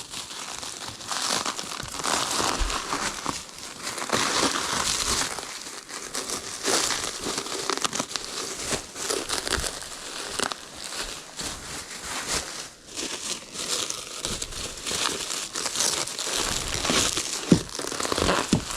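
Packing material being crumpled and torn as a steel-shipping-box crucible is unwrapped by hand, an irregular run of crinkling and rustling.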